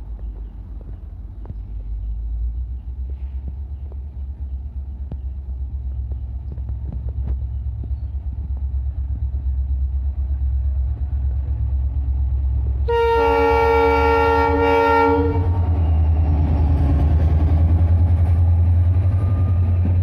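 Indian Railways diesel locomotive approaching with a steady low engine rumble that grows louder. About thirteen seconds in it sounds its multi-tone horn in one blast of a little over two seconds. Then the engine and coaches pass close by, louder, with wheels running on the rails.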